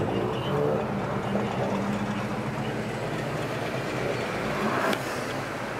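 Car engine running steadily at low speed while driving, heard from inside the car, with road and traffic noise underneath.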